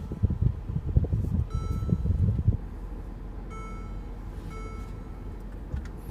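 Car's interior chime sounding three short ringing tones, about one and a half, three and a half and four and a half seconds in, over low cabin rumble that drops off about two and a half seconds in.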